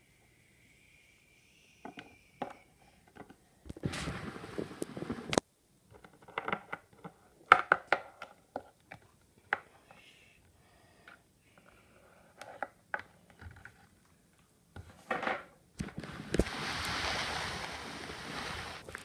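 Small plastic toy figures and toy furniture being handled and set down on a wooden tabletop: scattered clicks, taps and knocks. There is a burst of rustling handling noise about four seconds in, and a longer one near the end.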